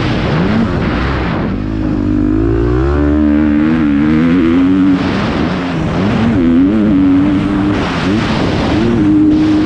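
Motocross bike engine revving up and down as the rider accelerates, backs off and shifts gears, under a steady rush of wind noise.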